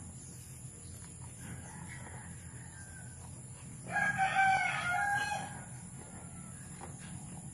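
A rooster crows once, about four seconds in, a single call lasting about a second and a half, with faint clucking of hens before it.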